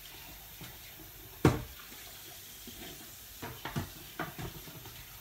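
A saucepan being washed at a kitchen sink under a running tap. Water runs steadily, with one loud clank about a second and a half in and a few lighter knocks a couple of seconds later.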